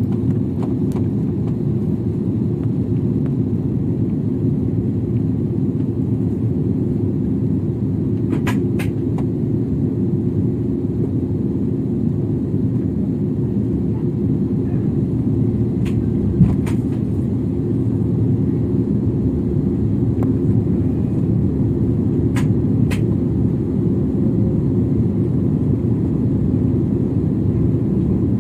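Steady low rumble of jet engines and airflow inside the cabin of a jet airliner descending on approach, heard from a window seat. A few faint clicks sound over it.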